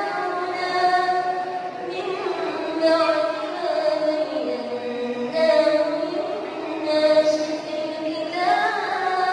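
A young imam reciting the Quran in a melodic chant, drawing out long held notes with ornamented turns. The voice dips lower about halfway through, then climbs again.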